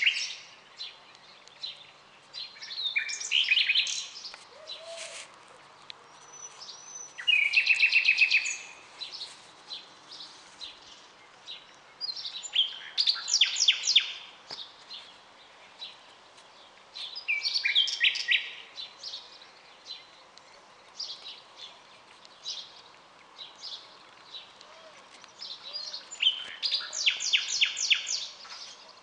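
Common nightingale singing: five loud phrases of rapidly repeated notes, each a second or two long and spaced about four to five seconds apart, with fainter bird chirps between them.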